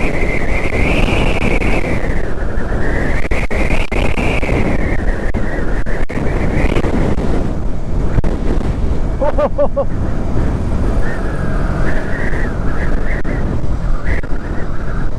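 Riding wind buffeting the microphone over a Yamaha MT-15's 155 cc single-cylinder engine running at road speed. The engine note rises and falls twice in the first few seconds with the throttle.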